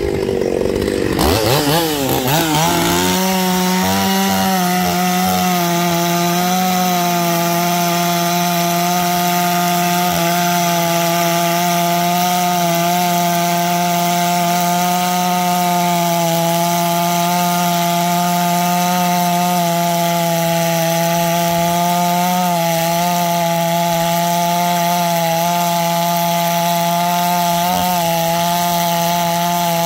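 Chainsaw revving up over the first few seconds, then held at a steady high speed, cutting through wood, with the pitch dipping briefly twice near the end.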